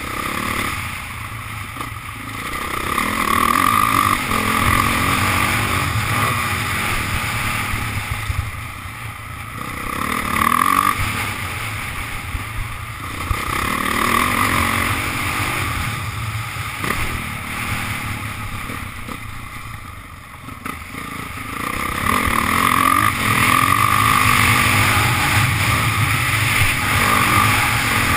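Motocross bike engine under riding load, revving up hard and easing off again and again as the throttle is opened and closed around the dirt track. It is loudest and most sustained near the end.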